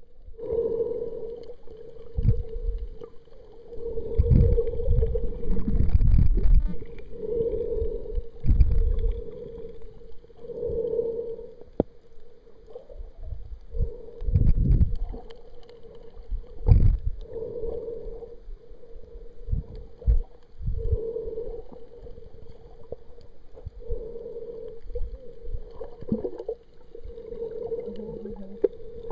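Muffled underwater sound picked up through an action camera's waterproof housing while snorkelling: low rushes and thuds of water moving around the camera, over a steady hum that swells every two to three seconds.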